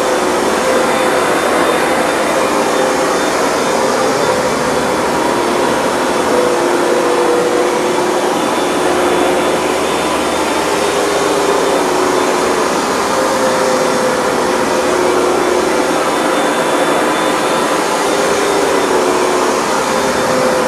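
Hoover Dual Power Max carpet cleaner running steadily, its suction motor whining with a pitch that shifts slightly up and down, while it washes a carpet.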